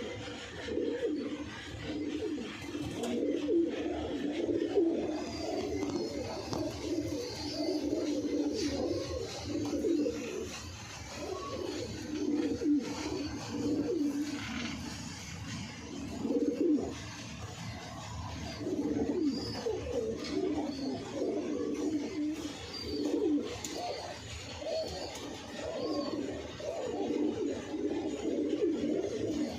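Domestic pigeons cooing, low throaty coos that run on almost without pause and overlap, thinning out briefly about halfway through.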